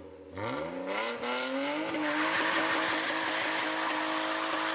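Tuned BMW drift car doing a burnout: the engine revs up sharply about half a second in, then holds at high revs while the spinning rear tyres squeal and hiss. The burnout is meant to wear down the new tyres' fresh tread so they slide properly when drifting.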